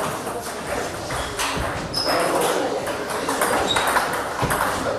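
Table tennis balls clicking irregularly off bats and tabletops, with several tables in play at once in an echoing hall.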